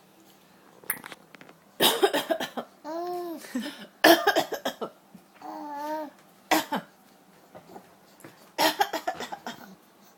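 Coughing in several short fits, with a young baby answering twice in between with a short laughing squeal.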